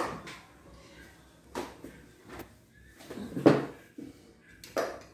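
About five separate knocks and clunks, the loudest a little past the middle: a plastic chair being pulled up and sat on at a table, with plates and cutlery being handled.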